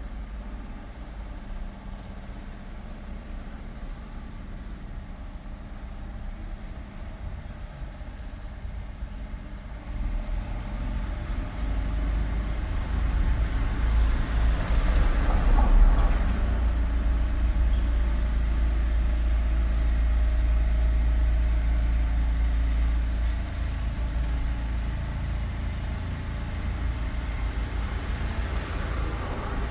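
Street traffic: a steady low engine rumble that grows louder about a third of the way in. A vehicle passes close around the middle, and the rumble eases a little near the end.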